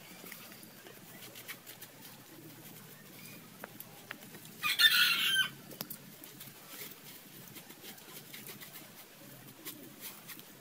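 A chicken calls once, briefly and loudly, about halfway through, over faint scraping and crumbling of dry soil under bare hands.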